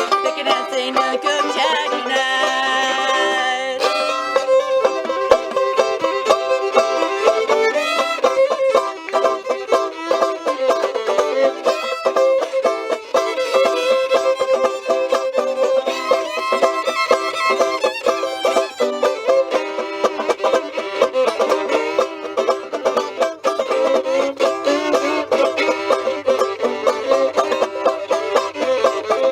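Live acoustic string music: an instrumental passage of a country-style song, with quick picked notes and sustained melody lines and no singing.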